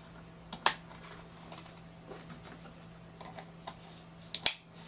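Waist-strap buckles of a seat harness being fastened and handled: a sharp click a little under a second in, a few faint taps, and a quick double click near the end.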